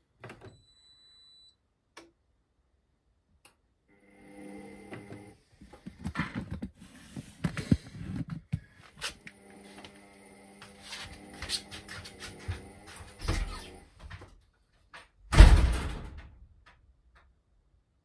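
Indesit IWDD7143 washer dryer starting a timed tumble-dry programme. There is a short high beep from the control panel, then about ten seconds of steady humming crossed by many clicks. About fifteen seconds in comes one loud thump.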